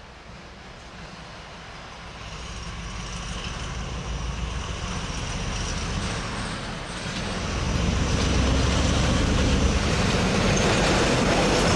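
A heavy train approaching, its rumble and rail noise growing steadily louder, with a further rise about eight seconds in.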